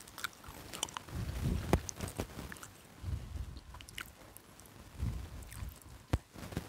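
Close-up mouth sounds of chewing fried chicken. Scattered sharp clicks and crinkles come as a small plastic sauce sachet is handled and torn open.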